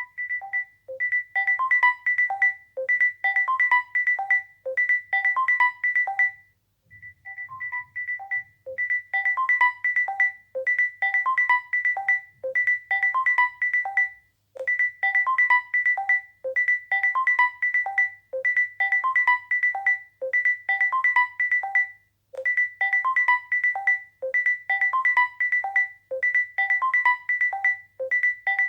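Samsung Galaxy J50 smartphone ringing for an incoming call: a ringtone melody, a short phrase of bright pitched notes repeating about every two seconds, with a brief gap about every seven to eight seconds as the loop restarts.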